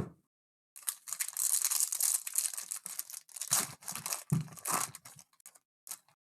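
Trading card pack wrapper being torn open and crinkled: a dense run of ripping and crackling that begins about a second in and lasts some five seconds, with a couple of dull knocks of the pack in the hands.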